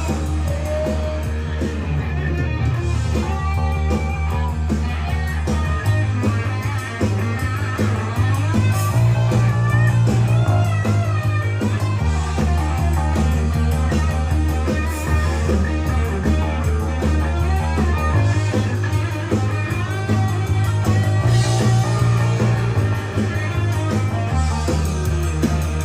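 Rock band playing an instrumental break: electric guitar over sustained bass notes that change every few seconds, with drums.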